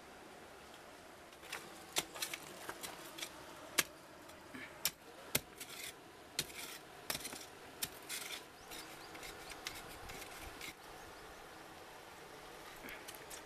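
Stones and gravel clicking and scraping as a hole is dug in stony ground, an irregular run of sharp knocks that stops a couple of seconds before the end.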